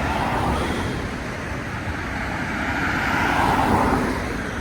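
Road traffic: a car passes, its tyre and engine noise swelling to a peak about three and a half seconds in, then fading.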